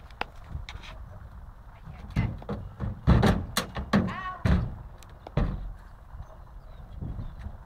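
A run of heavy thuds and knocks on a horse trailer, thickest from about two seconds in and dying away after about five and a half seconds.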